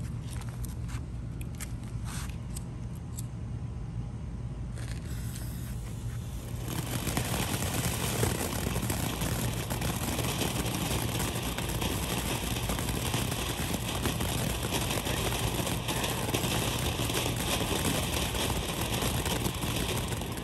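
Small ground fountain firework burning, spraying sparks with a steady crackling hiss that starts about six seconds in.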